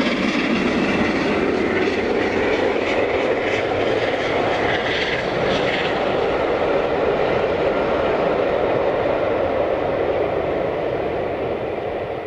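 Three-cylinder A1 Pacific steam locomotive 60163 Tornado hauling an eleven-coach train: its exhaust and the train's running make a steady rushing rumble that dies away near the end as the train draws off.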